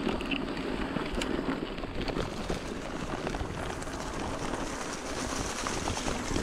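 Mountain bike rolling over a gravel and leaf-strewn path: steady tyre noise with a low rumble and many small crunches and rattles. A creek's rushing water comes in near the end.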